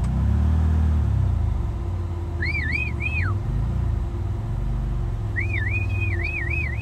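Side-by-side UTV engine running steadily at low speed, with a person whistling two short warbling phrases to call the animals, about two and a half seconds in and again near the end.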